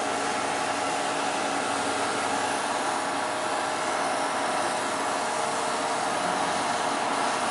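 Dental suction running: a steady hiss of drawn air with a constant tone in it.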